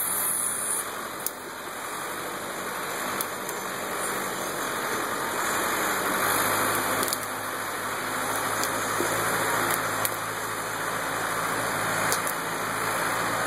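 Ford 655A backhoe's engine idling steadily under the even rush of creek water, with a few light clicks.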